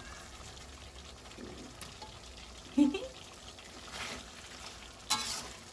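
Metal spatula stirring and scraping thick jengkol rendang in a wok, over a faint sizzle of the reduced sauce frying, with a couple of louder scrapes late on.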